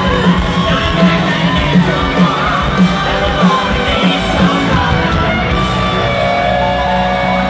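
A live rock band at full volume, heard from within the crowd: an electric guitar plays a lead line with bent, wavering notes over regular drum hits about twice a second. Near the end the drum hits give way to held notes.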